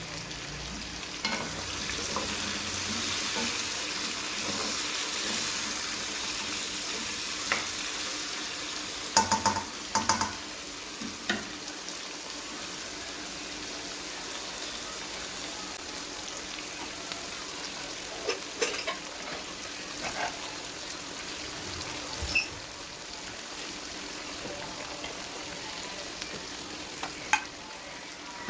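Food sizzling steadily in a hot frying pan, with a few sharp knocks and clicks scattered through it, a cluster of them about nine to ten seconds in.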